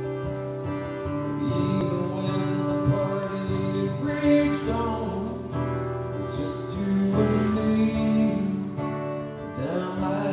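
Live music: an instrumental passage with strummed acoustic guitar over sustained chords.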